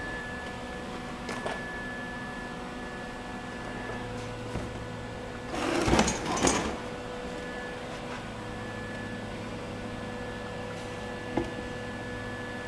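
Steel tubing being handled at the bender: a short double scrape-and-clatter about halfway through, with a single light clink near the end, over a steady workshop hum.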